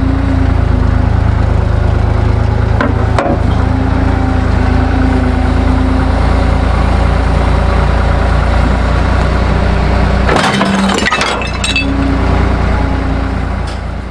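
Skid steer engine running steadily at work, with sharp cracks and clinks of junk being crushed by the grapple. About ten seconds in, a burst of crackling and breaking comes as the engine note drops under load.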